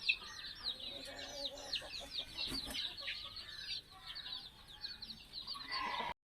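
A flock of chickens: many chicks peeping in quick, high, falling cheeps, with fainter low clucking underneath. The sound cuts off suddenly about six seconds in.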